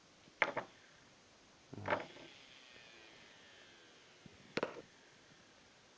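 Three sharp clicks of a wire lead being pushed against a screw terminal, then a faint whine from a small DC motor that falls slowly in pitch. The motor is running off the charge stored in capacitors and slows as they discharge.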